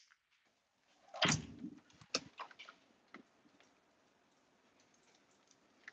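A door opening with a dull thud about a second in, followed by a few light clicks and knocks that fade out.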